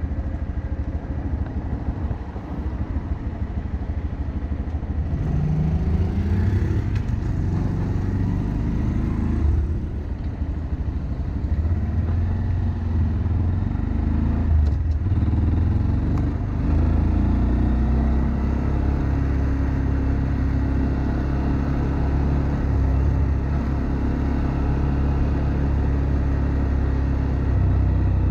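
Honda Monkey 125's single-cylinder four-stroke engine idling for about five seconds, then revving up as the bike pulls away, rising through the gears with short dips at the shifts, then running steadily at cruising speed with wind noise on the microphone.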